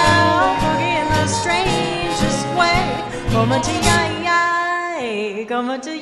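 Small swing band playing live, with a woman's singing voice over guitar and upright bass. About four and a half seconds in the bass drops out and a sliding, held line carries on alone.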